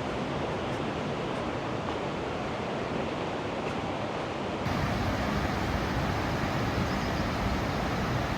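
Steady rush of flowing and falling water, which gets suddenly louder a little past halfway.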